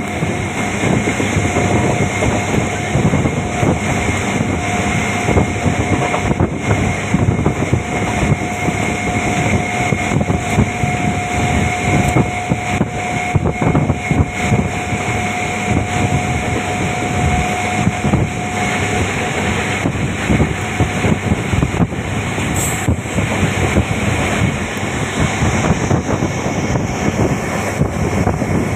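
A train running at speed, heard from aboard: a loud, steady running noise, with a thin steady whine that stops about two-thirds of the way through.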